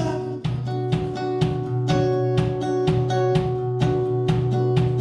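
Acoustic guitar strummed in a steady rhythm, about four strokes a second, with ringing held notes and no singing.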